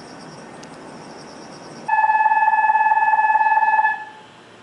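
Station departure buzzer sounding a steady, fast-fluttering electronic tone for about two seconds, starting about two seconds in. It signals that the waiting express is about to leave. Crickets chirp faintly before it.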